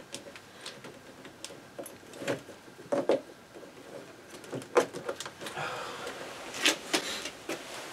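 Zip ties being cut off an RC truck held in its cardboard box: scattered sharp clicks and snaps of the cutter and plastic, with rustling as the truck is handled.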